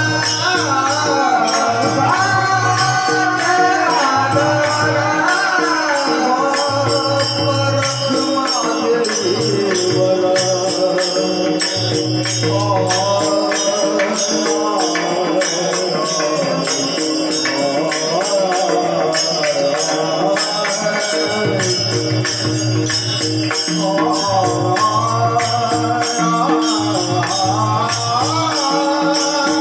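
Marathi devotional bhajan: a solo voice singing a melismatic, gliding melody over steady rhythmic jingling percussion and a held low accompanying note.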